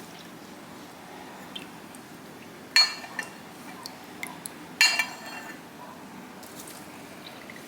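Kitchenware clinking: two sharp, ringing clinks about two seconds apart, with lighter taps and ticks around them.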